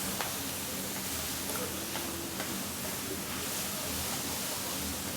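Pork belly, chives and bean sprouts sizzling steadily on a large iron griddle, with a few light clicks of cooking utensils.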